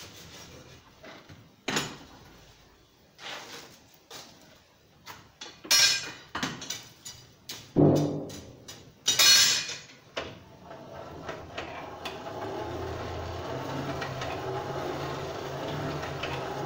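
Scattered metal clanks and knocks at a coal forge as the fire and the steel bar are worked. About ten seconds in, the forge's air blower starts and runs with a steady hum and rush of air while the corner of the bar heats.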